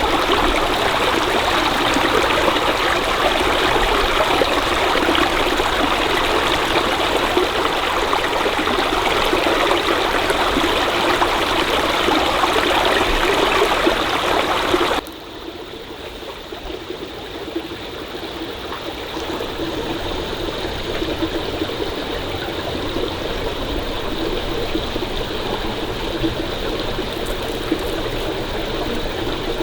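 Stream water running steadily. About halfway through, the sound drops abruptly to a much quieter flow, which slowly grows louder again.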